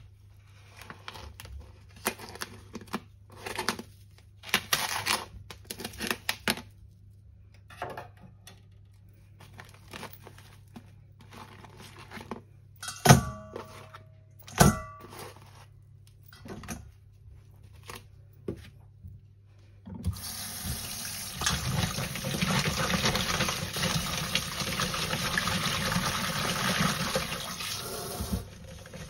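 Scattered clicks and handling noises over a low steady hum, with two sharp knocks about a second and a half apart that ring briefly. About two-thirds of the way in, water starts running steadily from a tap into a sink.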